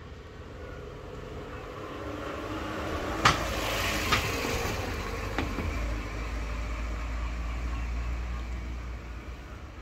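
A motor vehicle passing along the street, its noise swelling over a few seconds and fading away near the end, with a low rumble in the second half. Three sharp clicks or knocks stand out in the middle, the first the loudest.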